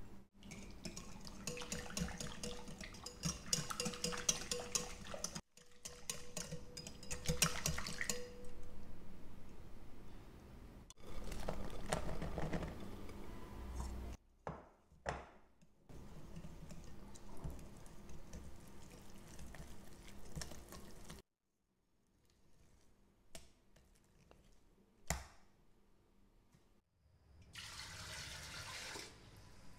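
Short stretches of kitchen sounds: clicking, scraping and stirring of batter in a glass mixing bowl, with a few single knocks. Near the end comes a steady rush of water pouring into a stainless steel wok fitted with a steaming rack.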